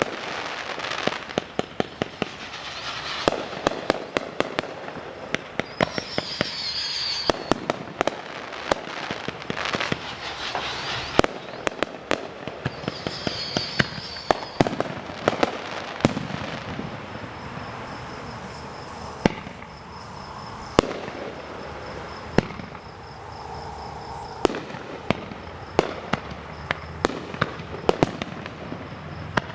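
Fireworks show: a dense run of sharp pops and bangs with crackling, with a couple of brief high whistling squeals between them.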